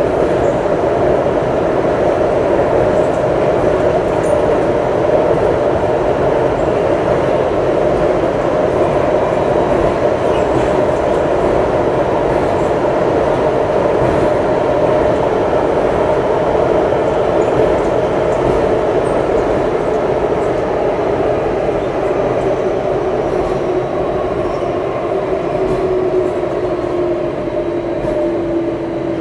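Singapore MRT train running at speed, heard from inside the carriage: a loud, steady rumble and rush of wheels on rail. Near the end a low whine slowly falls in pitch and the noise eases slightly.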